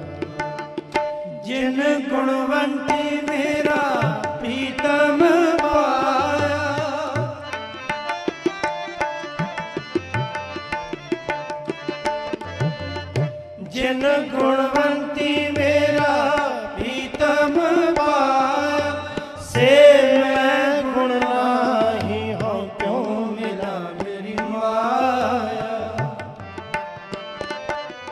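Sikh shabad kirtan: male voices singing over two harmoniums and a tabla. The singing breaks off in the middle for a short passage of harmonium and tabla alone.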